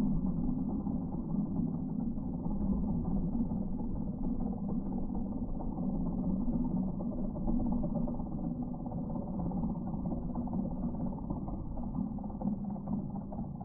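Bobcat E10 mini excavator running a Geko stump grinder attachment, a steady low mechanical drone with its sound slowed down along with the slow-motion picture.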